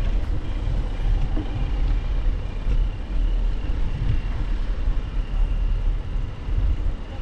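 Low, fluctuating rumble of riding a bicycle: wind buffeting and tyre noise on a bike-borne action camera's microphone.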